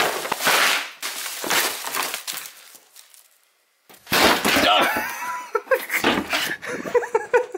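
Rustling handling noise fading to a brief silence, then a sudden crash about four seconds in as a person walks into a closed door and breaks something, followed by vocal sounds.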